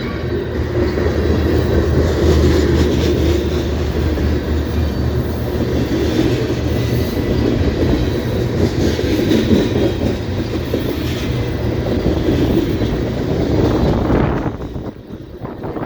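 Canadian Pacific train passing, its railcars rolling by with a steady heavy rumble and wheel clatter. The noise falls off sharply near the end.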